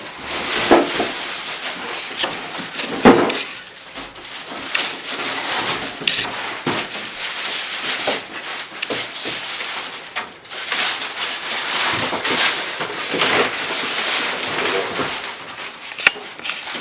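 Rustling and handling noise from a new TV's packaging being unpacked, with a few sharp knocks.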